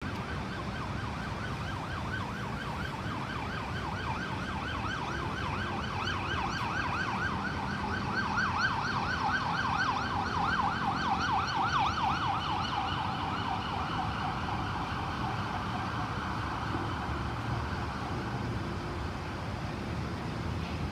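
Emergency siren of a Siriraj Hospital forensic vehicle sounding a fast yelp of about four rising sweeps a second. It grows louder toward the middle and fades over the last few seconds, over a steady low rumble of city traffic.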